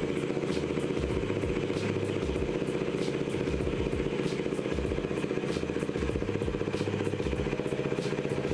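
Bajaj Dominar 400's single-cylinder engine idling steadily, with light ticks about every half second to second.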